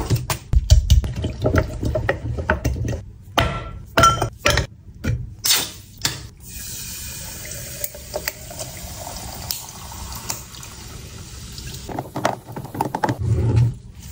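Kitchen clatter of quick knocks for the first few seconds. Then about six seconds of steady running water, as from a tap filling a vessel, followed by more knocks near the end.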